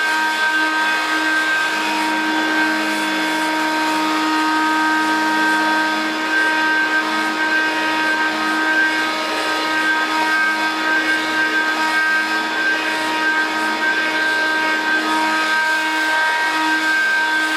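Hoover Dial-A-Matic 1140 upright vacuum cleaner, a non-Power Drive model from around 1972, running steadily: a constant motor whine over rushing air.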